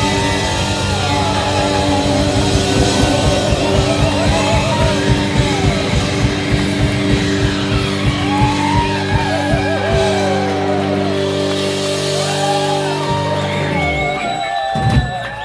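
Live rock band playing loud, with electric guitar, bass and drums. The drumbeat stops about ten seconds in, leaving a held chord that ends abruptly with a final hit near the end as the song closes.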